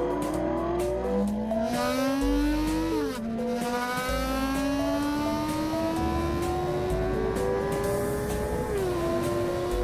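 Motorcycle engine accelerating on the road, its pitch climbing, dropping sharply at a gear shift about three seconds in, then rising slowly again and dipping near the end. Background music with a stepping bass line plays over it.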